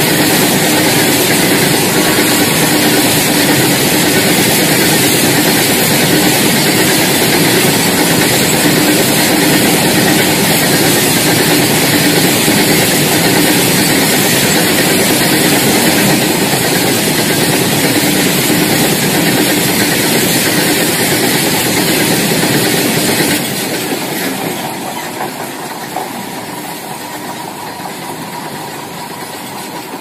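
Double-stack container freight wagons rolling past, a loud steady rumble with the clatter of wheels on the rails. About three-quarters of the way through the sound drops off and then fades as the tail of the train goes by.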